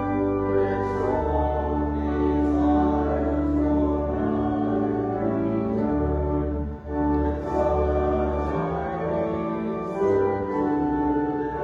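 A hymn sung with organ accompaniment: held chords over a sustained deep bass.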